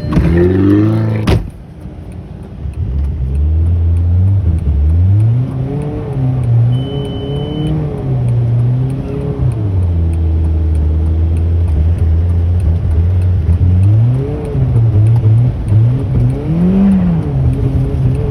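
Audi car engine under way, its note climbing under acceleration and dropping back again and again as it goes up through the gears and lifts off. The sound breaks off abruptly about a second in, then the engine picks up again.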